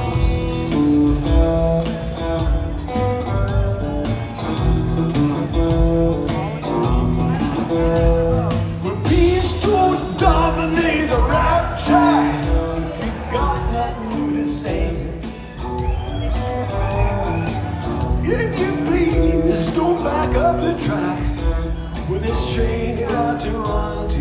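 A live rock trio of electric guitar, bass guitar and drums plays an instrumental passage with a steady beat. From about ten seconds in the guitar lines grow busier.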